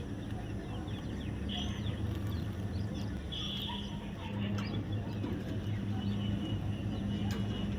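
Faint, short bird chirps over a steady low hum, with two clearer squeaky chirps about one and a half and three and a half seconds in.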